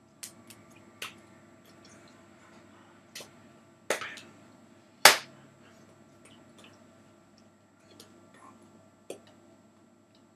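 Scattered sharp claps and clicks of hands striking each other during sign language, irregular and a few seconds apart, the loudest one about five seconds in.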